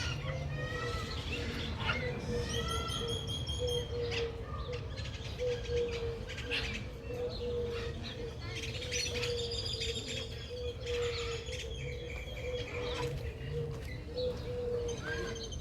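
Several birds chirping and whistling over one another, short calls and rising and falling notes, with a steady hum underneath.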